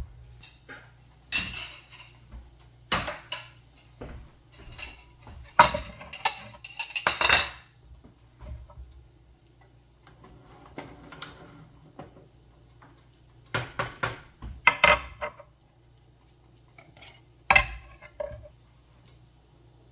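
Dishes and metal cutlery clattering and clinking in several short bursts, with a faint low hum underneath.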